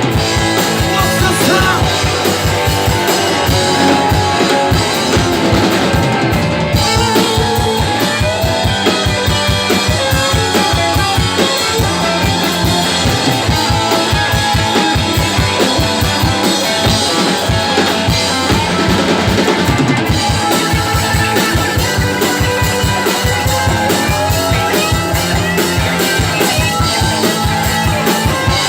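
Live rock band playing: electric guitar over a fast, driving drum beat, with no vocals.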